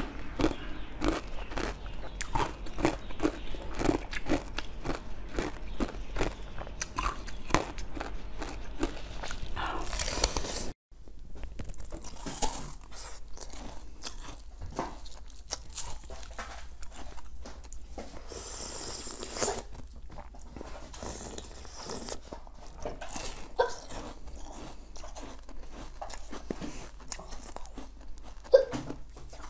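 Rapid, dense crunching as pomegranate seeds are chewed. About eleven seconds in the sound cuts off. Quieter biting and chewing of a green molded dessert follows, with one sharp bite near the end.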